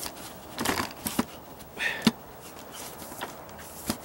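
Scattered knocks, scuffs and a short scrape as the camera is handled and repositioned, with a few footsteps.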